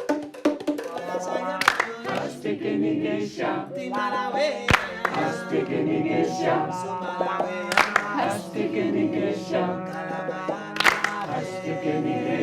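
A group of voices singing together, with a sharp percussive hit about every three seconds.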